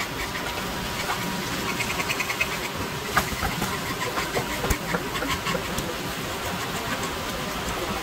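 A knife filleting a wild sea bass on a wooden cutting board: the blade scrapes and ticks along the bones, with a quick run of rapid ticks about two seconds in and sharp knocks a little after three seconds and near five seconds. A steady high hum runs underneath.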